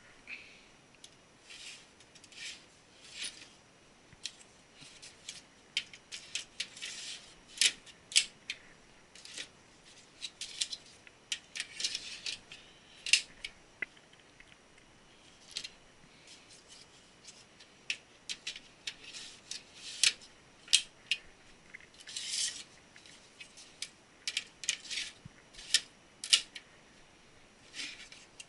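Irregular clicks, taps and scrapes of hard drives and metal and plastic parts being handled and fitted into a server case, clustered in quick runs with short pauses between.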